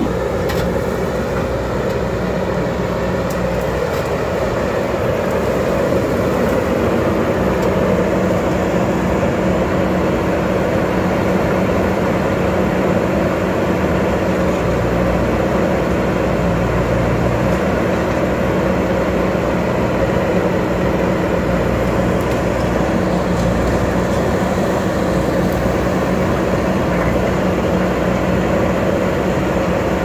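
JCB backhoe loader's diesel engine running steadily under load as the machine works the dirt road with its front loader bucket, a constant engine hum.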